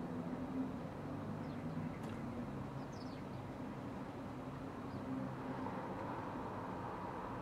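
Steady hum of road traffic with engine drone, and a few faint, high bird chirps about two and three seconds in.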